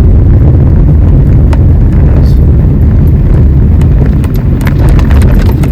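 Steady low rumble of a car driving on snowy roads, heard inside the cabin, with a few faint scattered clicks.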